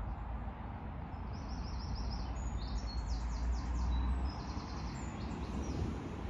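Low wind rumble on the microphone throughout. Over it, a small songbird sings quick runs of high chirps from about a second in until near the end.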